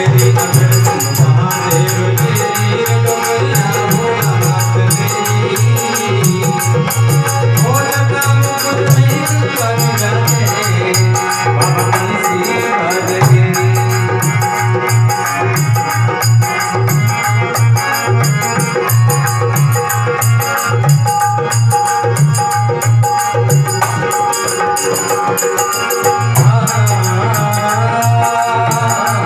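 Rajasthani Marwari folk music: a wavering melody over a fast, steady drum beat with jingling, rattling percussion.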